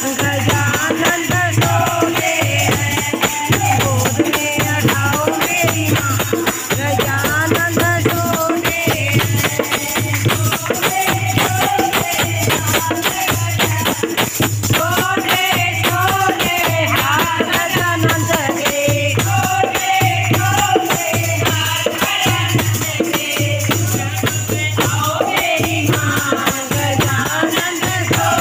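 Women singing a devotional bhajan into microphones, with a dholak drum and hand percussion keeping a steady, fast beat.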